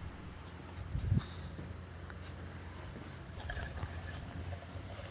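Quiet outdoor background with a low steady hum and a few short runs of faint, quick high chirps, and a single soft low thump about a second in.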